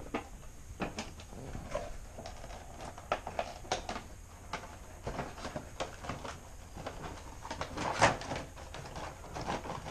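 Vinyl figures being moved about and set down on a hard surface: scattered light clicks and knocks, with a louder knock about eight seconds in.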